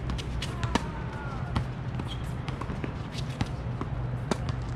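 Tennis rally on a hard court: racket strikes and ball bounces make sharp knocks, the loudest about a second in and again near the end, among many fainter knocks over a steady low hum.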